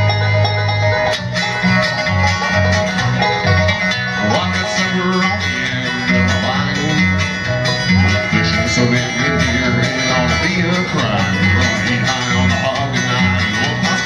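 Bluegrass band playing an instrumental intro: banjo and guitar picking over a line of steady low bass notes.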